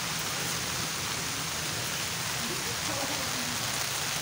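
Heavy rain falling steadily: an even, unbroken hiss of rainfall.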